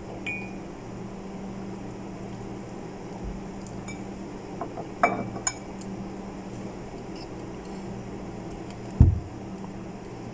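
Kitchen knife clinking and tapping against a ceramic bowl while fruit is cut, with a few sharp clicks about five seconds in and a dull thump near the end, over a steady low hum.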